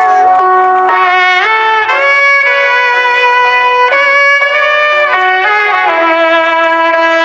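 Background music: a slow melody of sustained notes on a brass- or string-like instrument.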